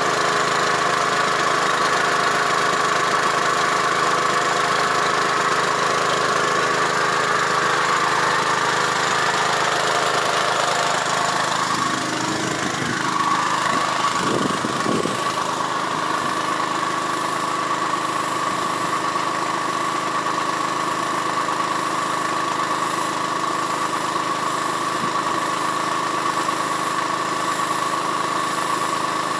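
Small engine of a crop-spraying rig running steadily, driving the pump that feeds the spray hose; its pitch shifts slightly about twelve seconds in.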